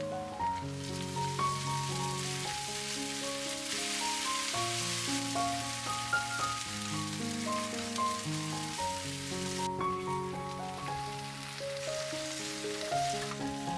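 Sliced onions and ginger-garlic paste sizzling in hot oil in a wok as they are stirred with a wooden spatula. Soft piano music plays throughout, and the sizzle drops away about ten seconds in.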